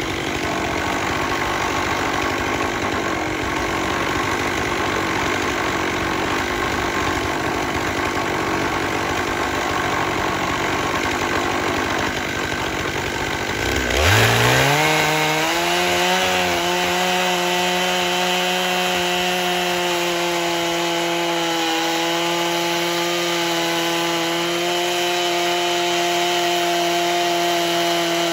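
Stihl MS 661 91 cc two-stroke chainsaw on a chainsaw mill, idling roughly. About halfway through it revs sharply up to full throttle and holds a steady high-speed note as it rips through a black walnut log with a ripping chain.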